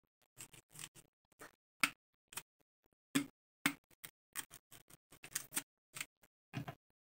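Kitchen knife cutting and scraping the thick skin off a cassava root: an irregular run of short crisp scrapes and ticks with brief pauses, a few strokes louder than the rest.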